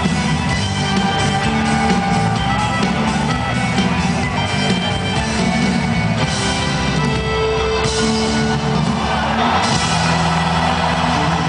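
Live folk-rock band playing loudly at an outdoor concert, heard from within the audience.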